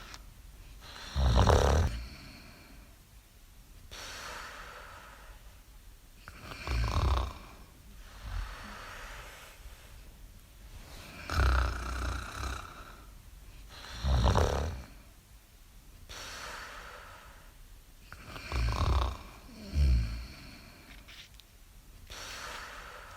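Snoring in slow cycles: a loud, low snore on the breath in about every four to five seconds, two close together near the end, with a softer, higher whistling "mimimi" breath out between them.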